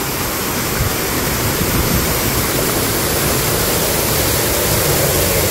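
A loud, steady rushing noise with no breaks, like wind or moving water.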